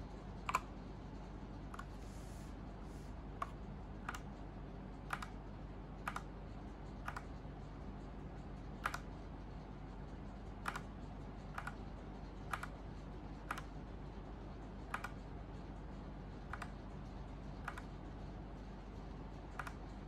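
Single key presses on an Ajazz K870T mechanical keyboard: separate clicks about once a second, spaced unevenly, over a low steady hum.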